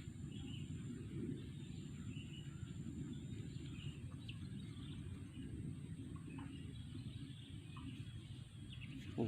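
Outdoor ambience: a steady low rumble, with faint, scattered bird chirps.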